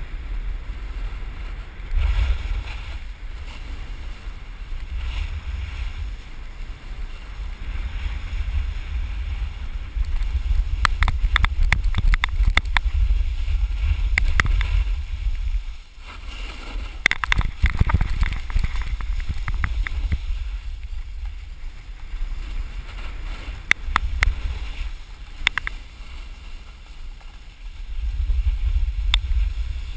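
Wind buffeting a GoPro's microphone during a fast snowboard descent, as a rumble that swells and fades. A board's edges scrape and chatter on the snow, with clusters of short sharp clicks, most of them in the middle of the stretch and again near the end.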